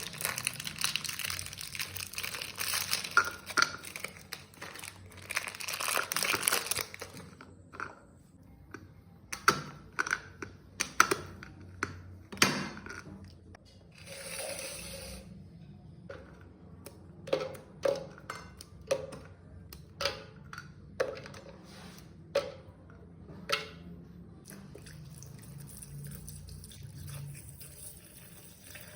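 Crinkly plastic biscuit packet being torn open and handled. After that come a dozen or so separate sharp knocks and clicks, spaced about a second apart.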